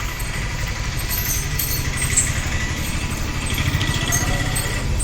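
An engine idling steadily, a low pulsing rumble with a faint high whine over it.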